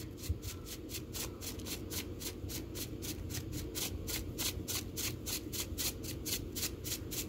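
Rapid, evenly spaced clicking, about five or six clicks a second, over a low steady hum.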